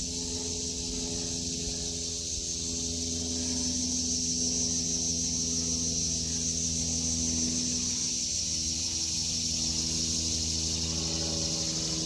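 Cicadas droning in a continuous high buzz that swells to its loudest midway and eases a little near the end, over a low steady hum.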